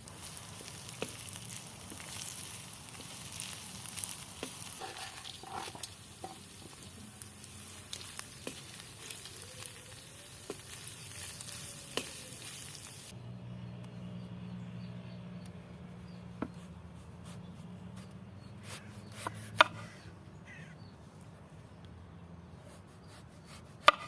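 Food sizzling as it fries, with scattered sharp clicks; the sizzling cuts off abruptly about halfway through, leaving a low hum and a few loud clicks.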